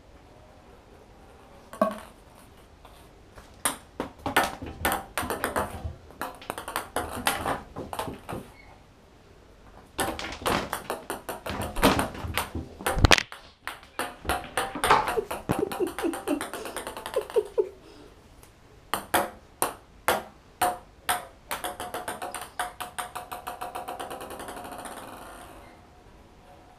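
Ping pong ball bouncing and skittering around an empty bathtub as a cat bats it, in several runs of quick clicks. Some runs speed up and die away as the ball settles. One heavier knock comes about halfway through.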